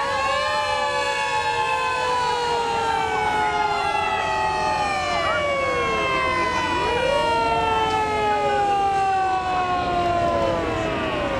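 Several fire engine sirens wailing at once, their pitches overlapping and gliding slowly up and down; one swoops low and climbs again a little past the middle.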